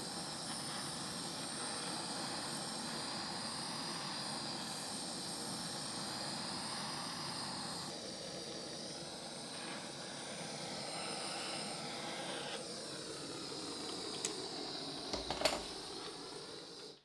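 Handheld gas blowtorch flame running with a steady rushing hiss as it heats a knife blade on glowing charcoal, bringing the steel to heat for blackening in oil. A few sharp clicks come near the end.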